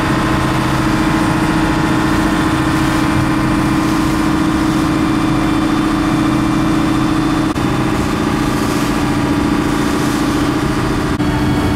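Engine of a small passenger boat running steadily underway, heard on board as a constant loud hum with a steady tone.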